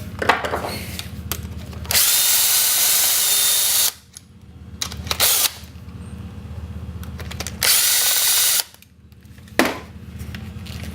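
Power drill run in three bursts: one of about two seconds, a short one, then about a second, with a couple of sharp knocks in between and a steady low hum underneath.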